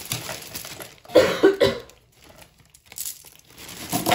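A person coughing in a fit from a dry throat: three quick, loud coughs about a second in, then two more near the end.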